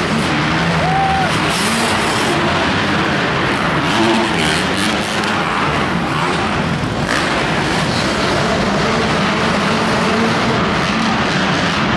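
Several motocross dirt bike engines revving and running as the bikes race around a dirt track, their engine notes rising and falling, heard inside an indoor arena.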